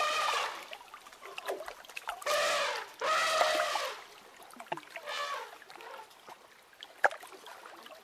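Water trickling and splashing as a young African elephant wades and drinks at a waterhole. Several short, high-pitched animal calls with a clear pitch sound over it, the loudest of them in the first half.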